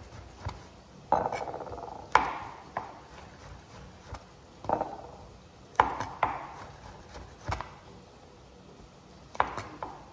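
Chef's knife slicing button mushrooms into thick slices, each cut ending in a short knock of the blade on the cutting board, about ten cuts at an irregular pace of roughly one a second.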